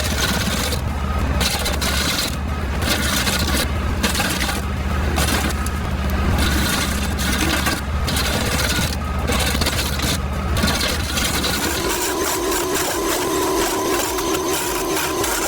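Tractor PTO stump grinder cutting into a stump: coarse, uneven wood grinding and rasping over a steady low engine drone. About eleven seconds in the grinding gives way to a steadier hum with a held tone.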